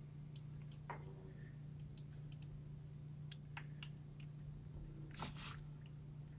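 Faint, irregular clicks of a computer mouse and keyboard, over a steady low hum. Two short, slightly louder soft noises come about a second in and about five seconds in.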